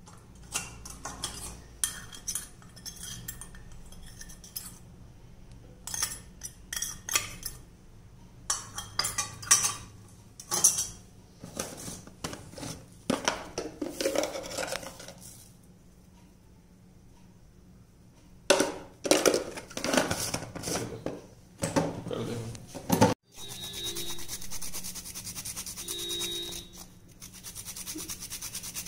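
A metal spoon clinking and scraping against a steel mixing bowl as spices are added to raw chicken, in irregular bursts. Near the end comes a few seconds of steady, rapid rasping.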